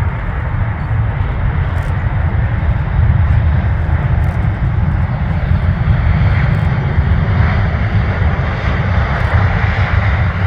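Steady jet noise of an Airbus A380's four engines, with a heavy low rumble.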